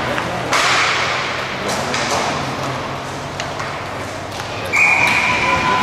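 Hockey game play: sticks and puck giving sharp clacks and thuds over a steady rink hiss, then a held high-pitched tone of about a second near the end.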